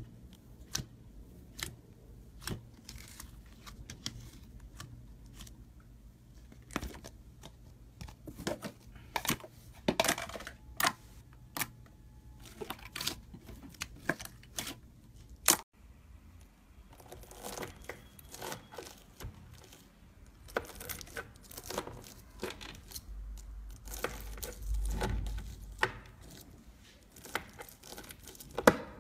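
Sticky slime poked, pressed and kneaded by hand, giving a string of sharp clicks and pops, with a denser crackling, tearing stretch in the second half.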